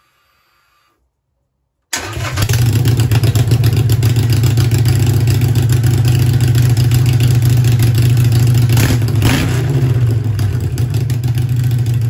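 Harley-Davidson Sportster 883's air-cooled V-twin starts up about two seconds in and idles loudly and steadily through Vance & Hines Short Shots exhaust pipes, with a brief rise in the note near nine seconds in.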